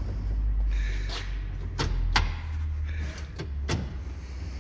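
About six sharp clicks and knocks, scattered over a few seconds, from metal parts handled in a UTV's engine bay, over a low steady rumble.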